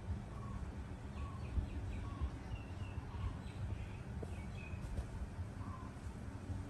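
Faint birds chirping: a short note repeating at a steady pace, with a few higher chirps in the middle, over a steady low rumble of background noise.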